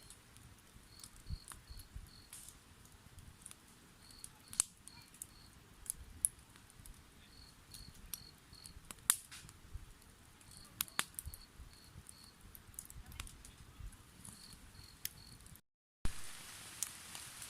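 Cricket chirping in short high trills of three or four pulses, repeating every couple of seconds, with scattered sharp clicks. Near the end the sound cuts out briefly and returns as a louder hiss.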